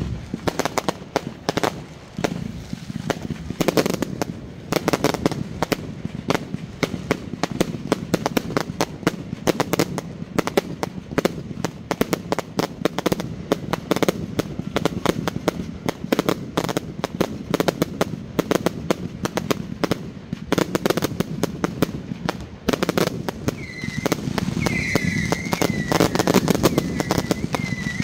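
Fireworks going off in a continuous barrage of rapid bangs and crackles. Near the end a high, wavering whistle joins in.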